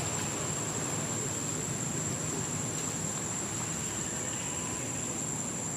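Steady outdoor background hiss with a constant high-pitched tone running through it, and no distinct event.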